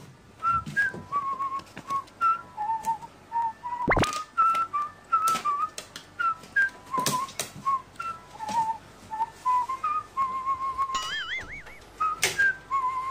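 A cheerful whistled tune of short notes, with a quick rising slide about four seconds in and a warbling flourish near the end. Sharp clicks and knocks are scattered through it.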